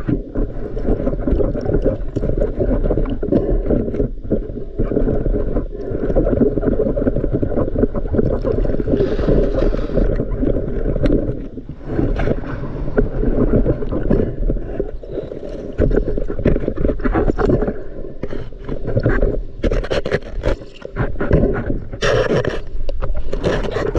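Underwater sound picked up through a camera housing while spearfishing: muffled rushing and gurgling of water, broken by frequent knocks and clicks.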